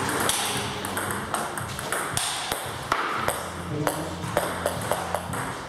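Table tennis ball in a rally, clicking sharply off the bats and the table in a quick, irregular run of hits.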